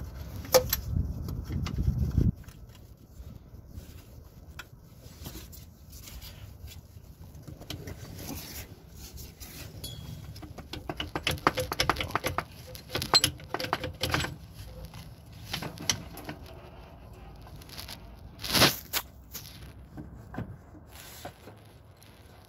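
Volvo D13 crankcase filter housing being worked loose by hand and lifted out of the engine: scattered clicks, knocks and scrapes of the housing and fittings against the engine, with a low rumble for the first two seconds and one sharp knock near the end.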